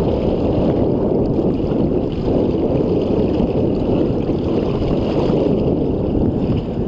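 Steady rush and splash of water along a boat's side as a large bull redfish is held in the water beside the hull for release, with wind noise on the microphone.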